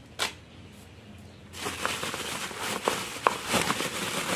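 A single short tap near the start. Then, about a second and a half in, bubble wrap begins crinkling and rustling with many sharp little crackles as it is pulled open by hand around an action figure.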